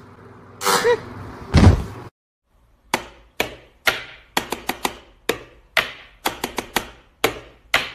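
A wall light switch flicked on and off over and over: more than a dozen sharp clicks at an uneven pace, some in quick runs of three or four. Before them, about a second in, come two loud sound effects, the second a heavy thump.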